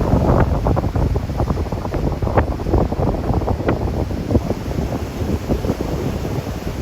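Strong wind buffeting the microphone in uneven gusts, over the wash of typhoon-swell surf breaking on the beach.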